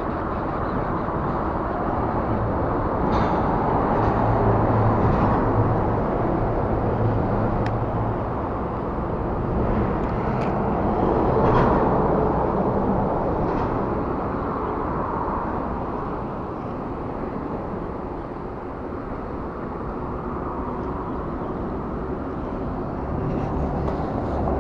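Steady rumble of road traffic on the bridge, swelling twice as vehicles pass, with a few faint clicks.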